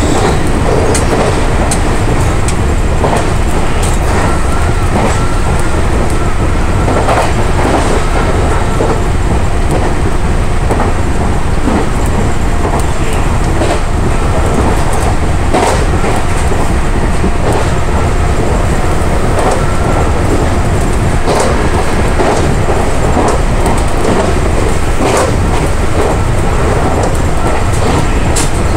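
Meitetsu electric multiple-unit train running at speed, heard from the front of the leading car: a steady loud rumble of wheels on rail, with irregular clicks and clatters from the track.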